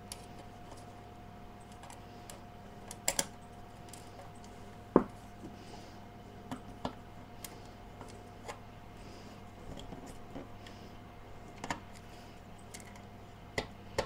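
Screwdriver and sheet-metal power supply housing being handled during reassembly: scattered clicks and taps, a quick double click about three seconds in and the loudest knock about five seconds in, over a faint steady hum.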